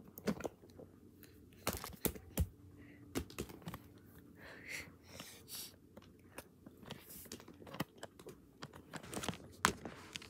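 Hard plastic animal figurines clicking and knocking together as they are handled, a string of irregular sharp taps, with a brief soft rustle near the middle.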